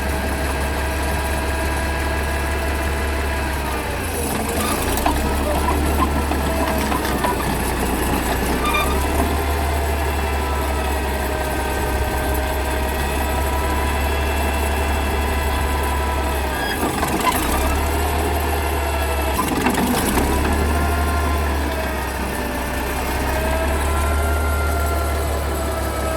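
Caterpillar bulldozer's diesel engine running, with a steady low drone and a pitch that dips and rises slowly several times as the revs change. A few short knocks are heard along the way.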